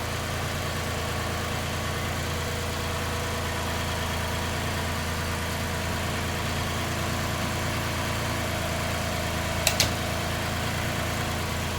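2018 Toyota Highlander's engine idling steadily just after a new battery has been fitted. Two quick sharp clicks sound close together near the end.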